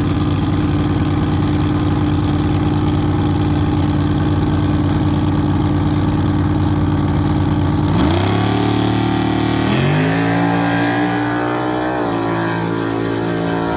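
Car engine running at a steady idle, then revved up in two quick steps and held at higher speed, edging up once more near the end.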